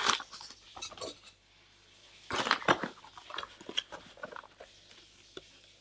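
Scattered clinks, knocks and rustles of a metal spoon and a paper flour bag being handled as flour is scooped out. The loudest cluster comes about two and a half seconds in.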